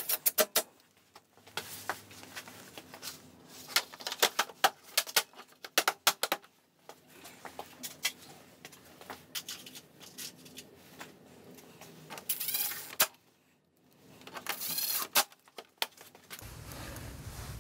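Irregular clicks, taps and rattles of hard plastic scooter bodywork and fasteners being handled and fitted, coming in clusters. A steady low hum comes in near the end.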